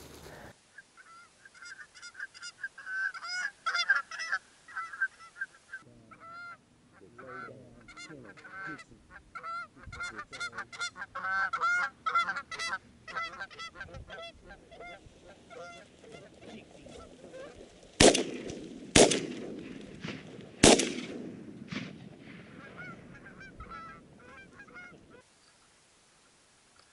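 A small flock of Canada geese honking repeatedly as they come in, then three shotgun shots in quick succession, each echoing, with a few more honks among them before it falls quiet.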